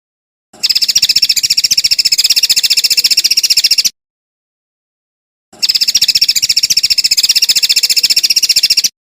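A cage songbird's fast, even trill, played twice as two bursts of about three seconds each that start and stop abruptly.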